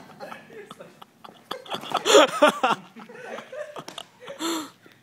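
People laughing and exclaiming, loudest about two seconds in, with a short held vocal sound near the end.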